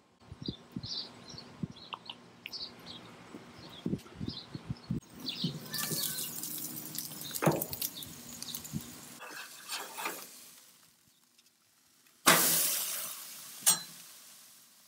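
Steak sizzling on a hot gas grill's grates, with a metal spatula clicking and clinking against them. Near the end a sudden loud burst of sizzle fades away over a couple of seconds as the steak is turned with the spatula. Short bird chirps sound in the first few seconds.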